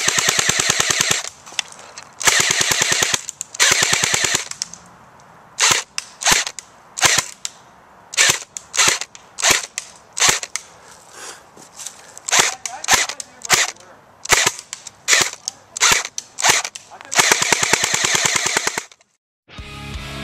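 Airsoft guns firing: three rapid full-auto bursts, then a long string of single shots about every half second, then one more full-auto burst near the end.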